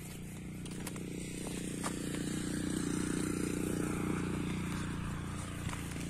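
A small engine droning steadily, growing louder to a peak about three to four seconds in and then fading away.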